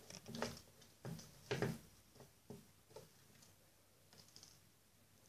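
Soft handling noises as a Barbie doll's hair is braided and tied on a tabletop: light taps and rustles, the louder ones in the first two seconds and a few fainter ones later.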